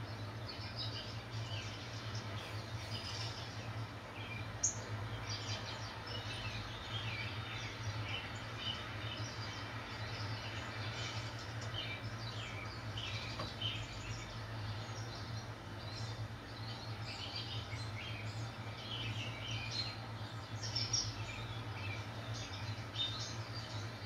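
Birds chirping from a backyard bird-feeder video, heard through a television's speakers: many short, high chirps, over a steady low hum.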